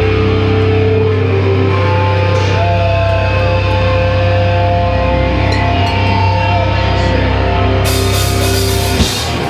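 A punk rock band playing loud and live, with distorted electric guitars and a drum kit. A bright wash of cymbals comes in near the end.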